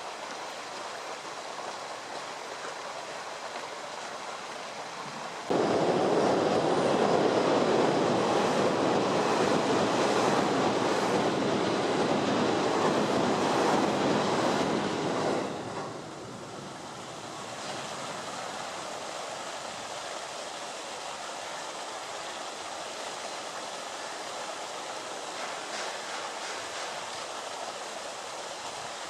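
Steady outdoor rushing noise. It jumps sharply louder about five seconds in, stays up for about ten seconds, then drops back to the lower level.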